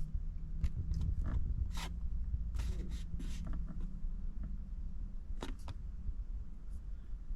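A few short, scattered clicks and brief rustles over a steady low hum.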